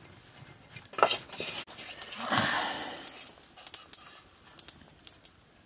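Scattered light clicks and scrapes of cooking at an open wood fire, with one louder breathy sound lasting about a second, starting about two seconds in.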